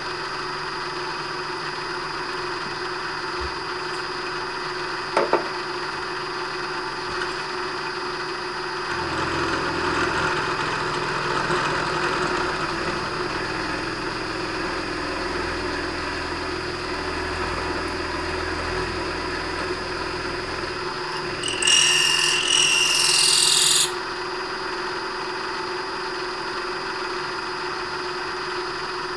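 Vertical milling machine running with a 5/8-inch end mill cutting a slot in a metal plate. The cutting noise grows louder for about twelve seconds in the middle, and there is one sharp click about five seconds in. About two-thirds through, a loud hiss lasts about two seconds.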